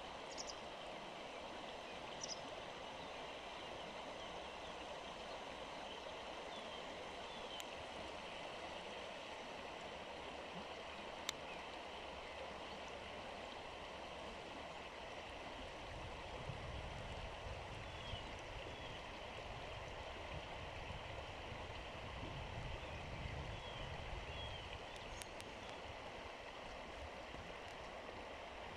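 Shallow river water running steadily over pebbles, an even gentle burble. A single sharp click about eleven seconds in.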